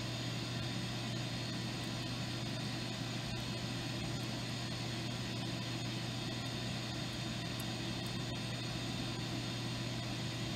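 Steady hum and hiss of a coordinate measuring machine running, its scanning probe tracing a helical path around a drilled hole to collect data points.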